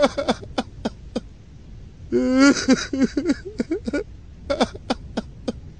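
Mostly speech: a man's voice speaks briefly about two seconds in, with scattered short clicks before and after it.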